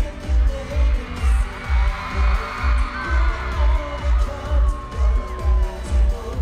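K-pop concert intro music played loudly through the venue's speakers, with a heavy bass beat about twice a second, and a crowd of fans screaming over it.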